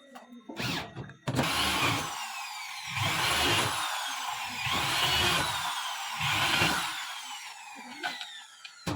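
A power tool, most like a drill, run in four short bursts about a second and a half apart, with a falling whine after each burst.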